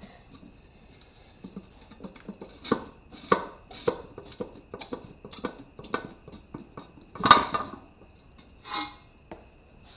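Metal tire irons clinking and knocking against a motorcycle wheel rim while a tire is levered off by hand: a run of irregular clanks, the loudest a sharp clank about seven seconds in.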